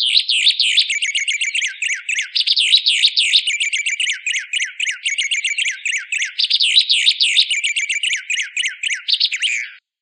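White singer (white-plumed honeyeater) singing a fast, continuous song of rapid high chirps and trills, which cuts off suddenly near the end.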